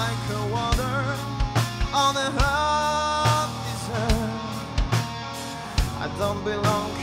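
Rock band playing live: a male singer sings with vibrato over electric guitar and drum kit, holding one long note about halfway through.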